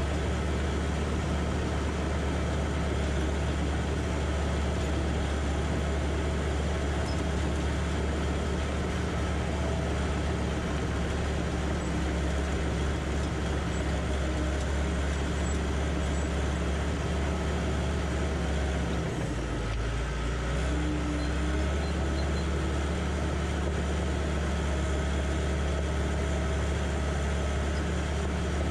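John Deere 450J crawler dozer's diesel engine running steadily while the machine works. About two-thirds of the way through, the engine pitch dips briefly and then recovers.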